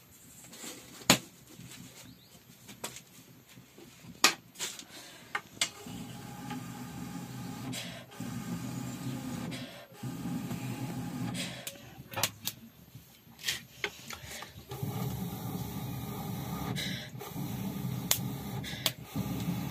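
A few sharp clicks of a steel lid and pot being handled, then, from about six seconds in, breath blown through a bamboo blowpipe into a wood fire in a mud stove. The blowing comes as a run of long, breathy puffs with short pauses between them.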